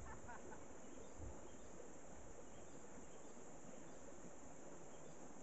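Steady rush of a fast-flowing stream swollen by heavy rain, with a constant high-pitched drone of crickets over it and a few brief bird chirps near the start.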